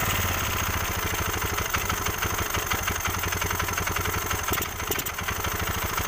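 A Yamaha Mio MX 125 scooter's single-cylinder four-stroke engine idling with a fast, even firing pulse, on a test run after a carburettor cleaning and tune-up. The level dips briefly near five seconds in.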